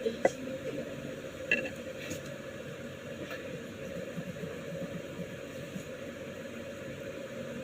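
Coloured pencil rubbing on paper, a steady scratchy shading, with a few light clicks and taps in the first few seconds.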